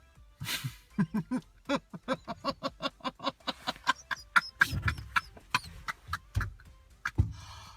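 A person laughing uncontrollably in a long, rapid run of pitched 'ha' pulses, starting with a breathy burst: pathological laughter of pseudobulbar affect.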